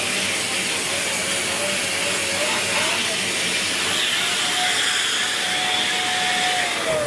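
Dyson Big Ball Animal cylinder vacuum running with the hose reaching up the stairs, a steady rush of suction air under a motor tone that wavers as the tool is worked, then holds higher and drops in pitch near the end.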